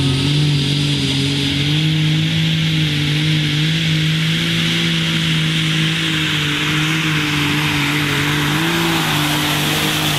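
Super Stock pulling tractor's turbocharged diesel engine running flat out under load, holding a steady high note with a loud hiss of turbo and exhaust noise over it. The pitch sags slightly near the end.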